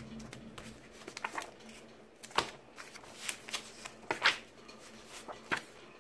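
Bagged comic books being slid over one another and shuffled by hand: a string of short, light plastic rustles and crinkles.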